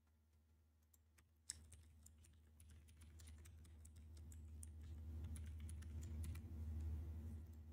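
Computer keyboard keys clicking in a quick run of keystrokes as a password is typed, starting about a second and a half in, over a faint low hum.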